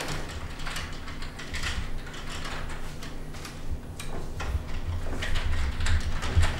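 Computer keyboard typing: irregular clicking of keys, over a low rumble that gets louder about two-thirds of the way through.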